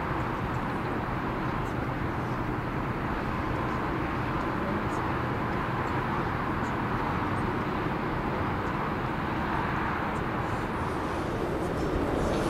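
Antonov An-70's four Progress D-27 propfan engines, with contra-rotating propellers, running steadily as the aircraft taxis. The noise is even and unchanging.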